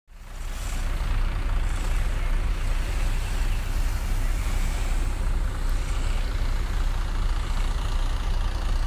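Steady wind buffeting the phone's microphone on an open beach, a fluctuating low rumble over a hiss of surf breaking gently on the sand.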